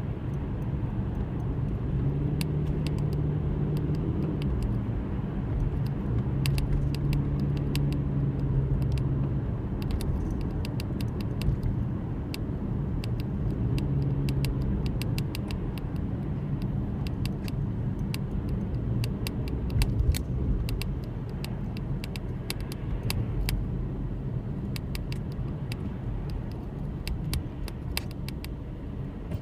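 A car's low engine drone and rumble, steady throughout, with the hum swelling now and then and many scattered sharp ticks over it.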